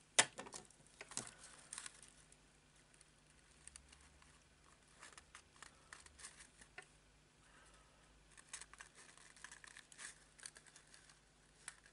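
Faint rustling and crinkling of a small cardstock box and paper pieces being handled and pressed together, with scattered light clicks. There is a sharper knock just after the start.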